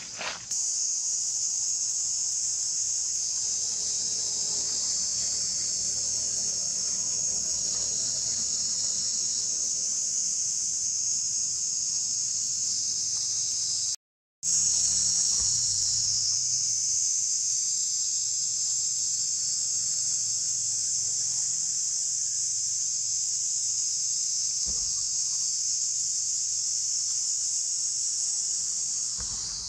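Steady chorus of forest insects, a continuous high-pitched buzz that holds at one level, broken once by a split-second gap about halfway through.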